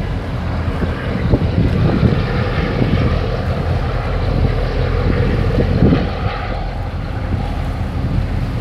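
Wind buffeting the microphone in gusts over a steady low engine drone, from a boat crossing choppy harbour water.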